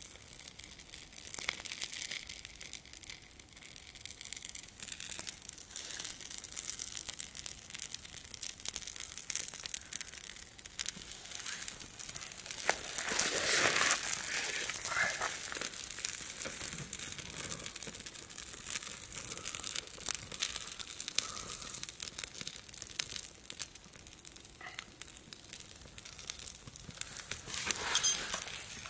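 Newly lit campfire of birch bark and resinous pine kindling (fatwood) crackling as it catches, with a louder stretch about halfway through.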